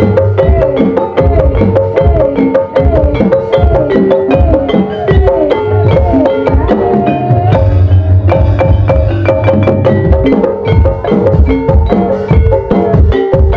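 Live gamelan-style accompaniment for an ebeg horse dance: struck tuned percussion playing a steady melody over a driving drum rhythm, with many short drum strokes that bend in pitch.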